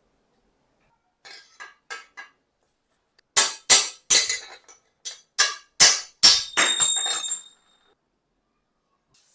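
Metal striking metal while a bike is being worked on: a few light taps, then about a dozen sharp, loud knocks in quick succession, the last ones ringing.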